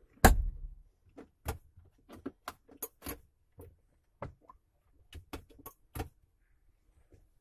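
Plastic glove box lid of a 2018 Maruti Suzuki Wagon R VXI shut with a loud knock just after the start. About a dozen lighter clicks and taps follow as a hand handles the lid and dashboard plastic.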